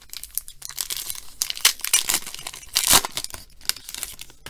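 A foil trading-card pack (2013 Panini Certified) being torn open and crinkled by hand: a string of quick, sharp rips and crackles, loudest about three seconds in.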